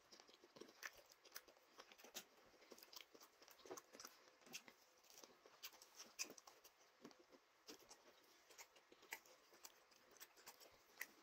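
Faint chewing of fufu with ogbono soup, eaten by hand: irregular small wet mouth clicks and smacks, a few each second.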